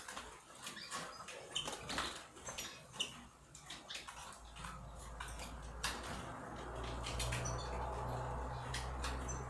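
Caged finches, a goldfinch mule among them, giving short high chirps among many sharp clicks; about halfway a steady low hum comes in and runs on.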